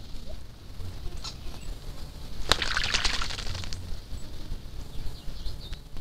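Smooth-billed anis bathing in a shallow pool: a burst of wing-flapping and splashing about two and a half seconds in that lasts about a second, with a few faint ticks around it.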